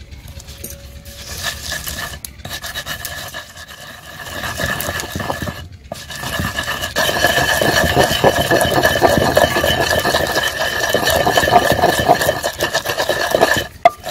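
Wooden pestle grinding fresh coriander, green chilli and salt into a chutney paste in a stone mortar: a rough rubbing and scraping of wood against stone, much louder from about halfway through and stopping just before the end.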